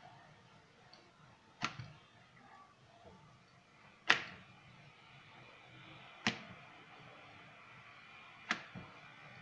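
Rolling pin rolling out dough on a stone rolling board, with four sharp knocks of the pin against the board about two seconds apart; the knock a little after four seconds is the loudest.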